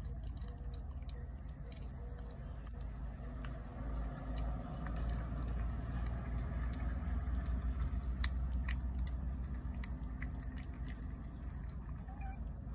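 A cat chewing and lapping wet cat food from a plate, with scattered small wet clicks of eating. A low, steady rumble runs underneath and swells in the middle.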